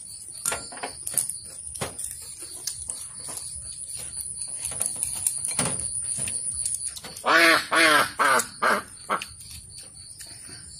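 A duck quacking four or five times in quick succession about seven seconds in, the loudest sound here. Around it, chopsticks click against bowls and dishes, over a steady high insect trill that fades out about the same time.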